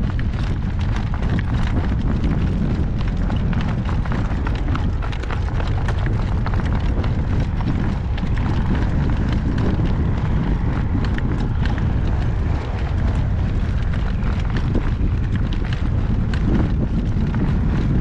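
Strong wind buffeting the microphone in a steady low rumble, with the hoofbeats of a horse in harness coming through as irregular clip-clops.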